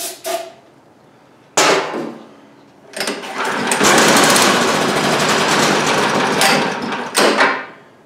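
A brief hiss of aerosol starting fluid, then the single-cylinder Honda-clone engine on a Cub Cadet leaf blower is pull-started. It gives one pop about a second and a half in, then catches and runs roughly for about four seconds before dying. It is running only on starting fluid, not on its own fuel supply.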